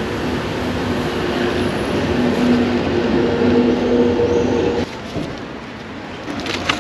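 Street traffic: a motor vehicle running with a steady low hum that cuts off suddenly about five seconds in. Near the end, aluminium foil crinkles around the sandwich as it is bitten.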